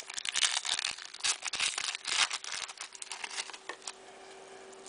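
Crinkling and rapid irregular clicks of a trading-card pack's wrapper and cards being handled and opened, dying down after about three and a half seconds to a faint steady hum.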